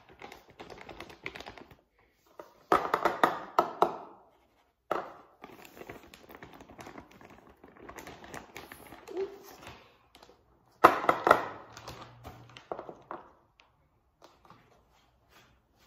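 Plastic meal packet being torn open and crinkled by hand: two loud bursts of rustling and crackling about three and eleven seconds in, with smaller crackles and ticks between.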